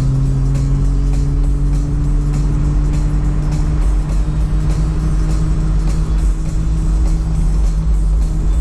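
Motorcycle engine running under way, its note rising slowly and steadily, with music that has a steady beat playing over it.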